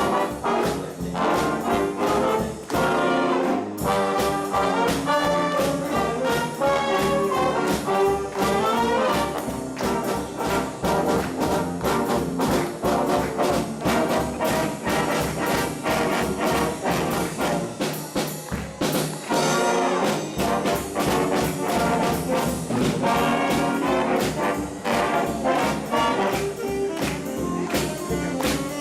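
High-school big band playing jazz: trumpets and trombones carry the tune over a steady swing beat from the drums.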